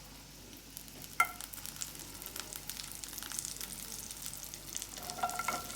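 Sliced mushrooms sizzling and crackling in melted butter in a frying pan as they are sautéed and stirred. A sharp metal clink of utensil on pan comes about a second in, with another clink near the end.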